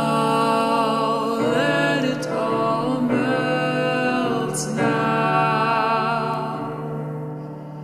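Slow, gentle song with held notes and layered, choir-like sung harmonies, a few notes sliding in pitch.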